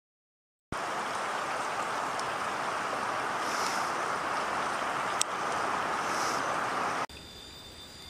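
Steady rushing noise that starts abruptly about a second in, with a single sharp click about five seconds in. Near the end it cuts off suddenly, leaving a fainter hiss with a few steady high tones.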